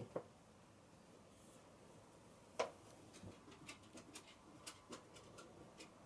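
Near silence with faint scattered ticks and clicks: one sharper click about two and a half seconds in, then a run of small irregular ticks.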